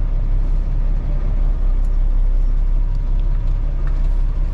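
Loaded dump truck's Caterpillar diesel engine running under load with a steady low drone.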